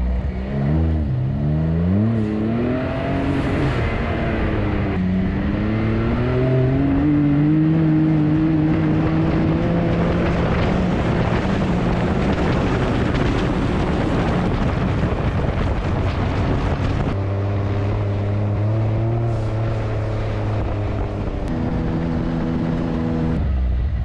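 Side-by-side UTV engine under way over sand dunes. The revs swing up and down a few times, then climb steadily as it accelerates, with a rush of wind and sand noise. The engine then holds a steady pitch and drops near the end as it slows.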